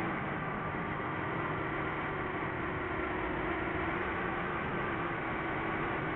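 FPV quadcopter's electric motors and propellers running steadily in flight, a whine with faint pitched tones over a rush of wind and prop noise.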